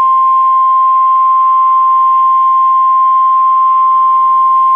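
The NOAA Weather Radio emergency alert tone: a loud, steady single tone near 1 kHz (the 1050 Hz warning alarm), held without a break. It signals that a warning broadcast, here a severe thunderstorm warning, is about to follow.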